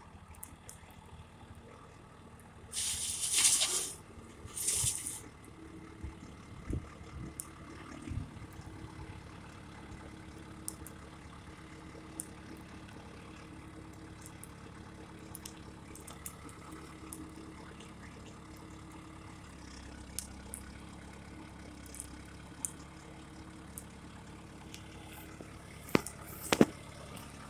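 Backhoe engine running steadily in the distance as a low hum, with two brief loud hisses about three and five seconds in and a few sharp clicks near the end.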